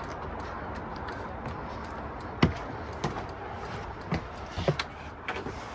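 A few scattered knocks and clicks over a steady low background noise, the sharpest about two and a half seconds in.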